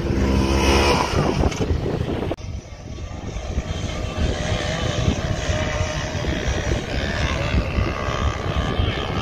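Polaris RZR XP 4 side-by-side's engine revving under throttle, then, after an abrupt change about two seconds in, a steady run of engine and rushing noise while riding.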